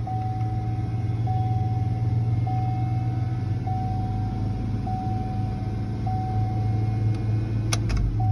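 Chevy Tahoe 5.3 V8 running at a steady high idle of about 2000 RPM after its throttle body was cleaned, a sign that the idle relearn has not yet been done. A warning chime repeats about once a second over the engine, and a couple of sharp knocks come near the end.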